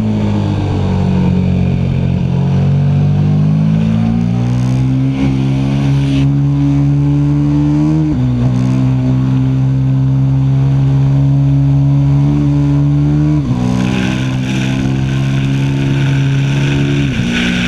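KTM 1290 Super Duke R's V-twin engine running hard under load: its pitch climbs slowly, then drops suddenly at three upshifts, about halfway through, three-quarters of the way through and near the end.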